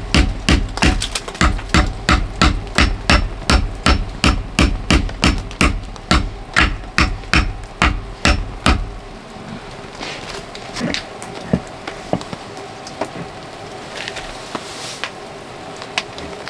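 Small hammer striking the metal pot stand set into a burning log stove, tapping it down to level it. It strikes steadily, about three times a second, and stops about nine seconds in.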